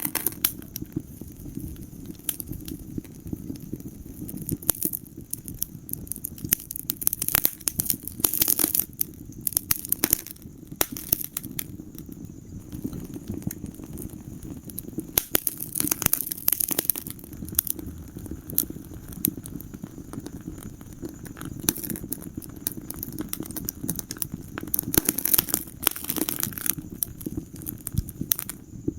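Wood fire burning in a fireplace: a steady low rumble of flames with frequent sharp crackles and pops, coming in clusters.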